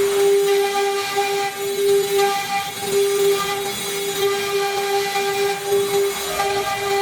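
Wood CNC router spindle running with a steady high whine, overlaid by a hissing cutting noise that swells and fades every second or so.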